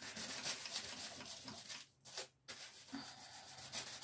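Paper separator sheet from a gold-leaf book being rubbed over freshly laid gold leaf to burnish it down for good adhesion: quick, repeated scratchy rubbing strokes, with a brief pause about two seconds in.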